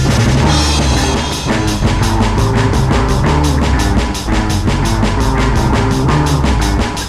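Loud, fast rock music with a driving drum kit, bass and guitar, a cymbal crash about half a second in.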